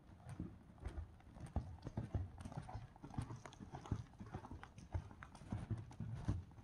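A horse loping, a slow canter, on soft sand arena footing. Its three-beat hoofbeats thud over and over.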